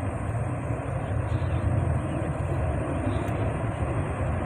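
Steady low rumble of the burning blown-out gas well, a continuous noise heard from a distance.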